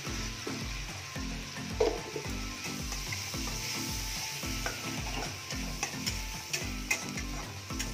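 Garlic paste frying in hot oil in an aluminium kadai, sizzling steadily while a metal spatula stirs and scrapes it, with a few sharp clinks of the spatula on the pan. A low pulsing, about three beats a second, runs underneath.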